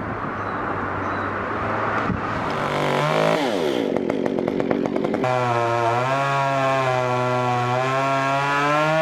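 A two-stroke chainsaw engine runs, its pitch shifting about three seconds in, then holding at high revs from about five seconds in, as in a cut.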